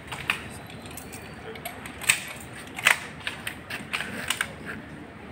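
Scattered sharp metallic clicks and clacks of rifles being loaded by a firing party, with a couple of louder clicks about 2 and 3 seconds in and a quick cluster around 4 seconds.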